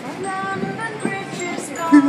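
A person singing a tune in held notes, without clear words.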